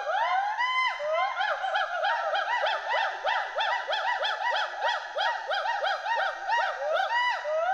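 Western hoolock gibbons calling: a fast, continuous run of whoops, each rising then falling in pitch, several a second. These whoops and hoots are the gibbons' social and territorial calls.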